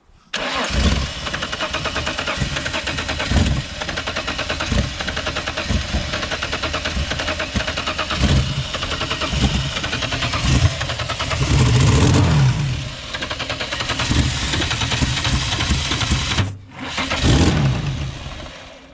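Holden VL Commodore engine cranking on its starter for a long stretch, firing in bursts and nearly catching but not running. It stops briefly about sixteen seconds in, then cranks once more for a moment. The owner takes the failure to start for a fuel problem.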